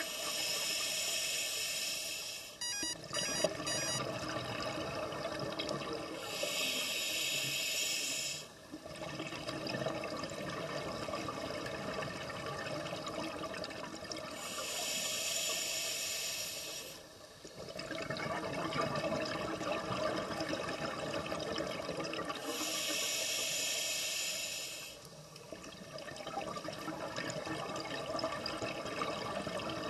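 Scuba diver breathing through a regulator underwater: three hissing breaths about eight seconds apart, with bubbling water noise between them. A short run of clicks about three seconds in.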